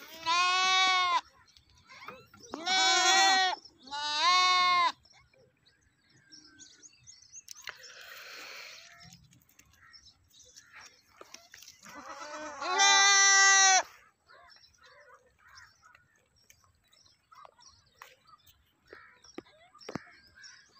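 Goat bleating: three bleats in quick succession at the start, then one longer bleat about twelve seconds in.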